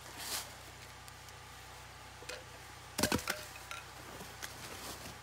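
Heavy military surplus canvas shelter being pulled out and shaken open: soft swishing and rustling of the cloth, with a short cluster of sharp clicks and knocks about three seconds in.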